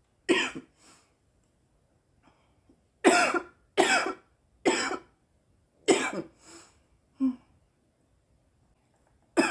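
A young woman coughing in separate bursts: one cough at the start, a run of three about a second apart from about three seconds in, then two more, the last one short.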